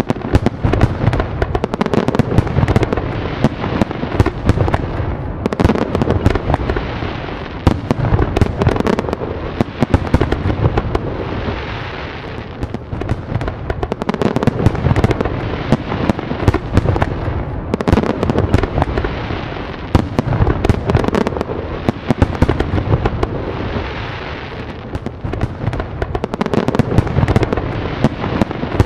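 Fireworks display: a steady barrage of bangs and crackling bursts over a low rumble. It swells and eases in a pattern that repeats about every six seconds.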